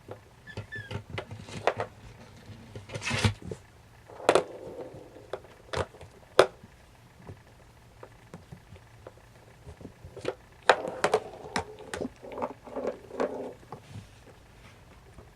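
Siamese kittens playing: irregular taps, knocks and thumps, clustered most densely about four seconds in and again from about eleven to thirteen seconds in.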